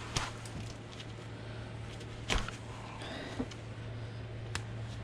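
Scattered clicks and snaps of a plastic Christmas rope light being worked apart by hand, with the loudest crack a little over two seconds in, over a steady low hum.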